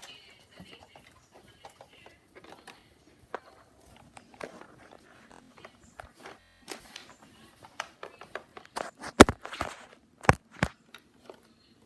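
Scattered clicks and knocks of objects being handled, with a few sharp, louder knocks near the end.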